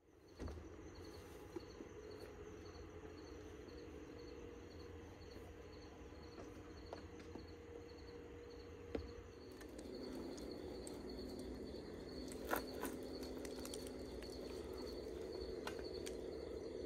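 Crickets chirping at night, a faint high pulse about twice a second that runs together into a steady trill about halfway through. A few soft knocks of handled gear.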